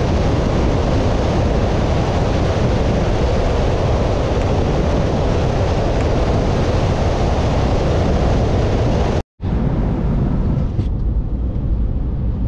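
Steady rush of wind on the microphone and tyre noise from a pickup truck driving on a gravel road, heard from a camera mounted outside on the hood. About nine seconds in it cuts off abruptly, and after a brief gap comes the duller, steady road and engine rumble inside the truck's cab.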